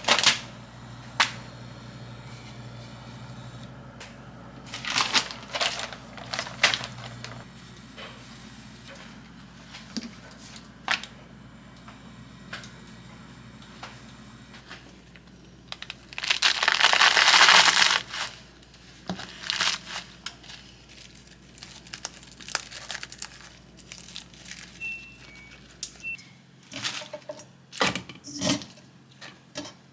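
Small handling noises: clicks, rustles and crinkling as objects are picked up and put down, with a louder two-second rushing hiss about halfway through and a low background hum that stops near the end.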